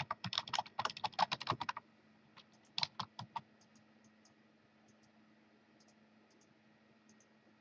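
Typing on a computer keyboard: a quick run of keystrokes for about two seconds, then a few more clicks about three seconds in, then near quiet with a faint steady hum.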